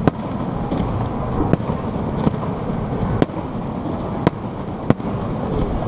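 Fireworks shells bursting overhead: sharp bangs at uneven intervals, about five loud ones and a few fainter, over a steady low background rumble.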